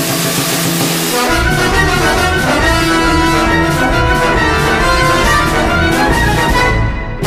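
Background music with brass instruments playing.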